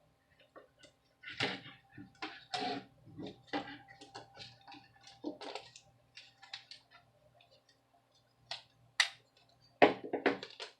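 Irregular light clicks and taps of small laptop parts being handled as the heatsink and fan assembly is worked loose and lifted off the CPU, with a few sharper knocks near the end.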